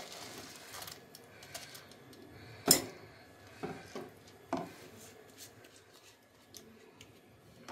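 Soaked basmati rice sliding out of a mesh strainer into a steel pressure cooker with a soft hiss, followed by a few sharp clicks and knocks of the strainer and spatula against the pot, the loudest about three seconds in.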